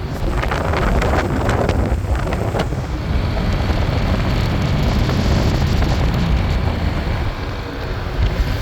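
Wind buffeting the camera's microphone, a heavy, uneven low rush, with a few light clicks in the first couple of seconds.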